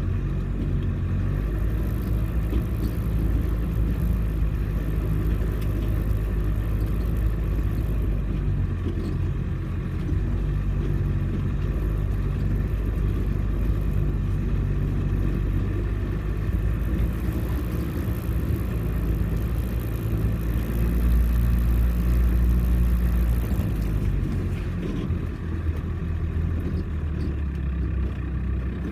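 Off-road 4x4's engine running steadily under load, with a low rumble, getting louder for a few seconds about two-thirds of the way through.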